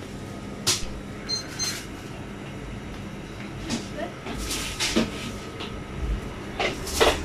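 Scattered knocks and clicks, a handful over several seconds, the sharpest about a second in and near the end, over a steady low hum.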